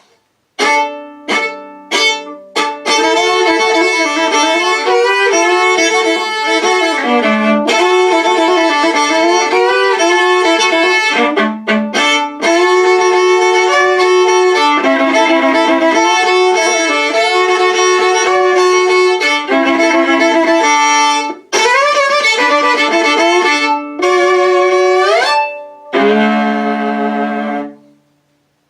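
Solo viola played country fiddle-style: a few short bowed strokes to start, then a running tune with double stops and a slide up near the end, finishing on a held chord that fades out.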